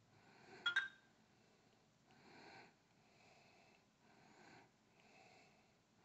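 BlackBerry Curve 8530 phone giving one short, sharp double-click blip with a brief ringing tone under a second in, as its ringtone list is scrolled. After that there are only a few faint, soft swells like breathing.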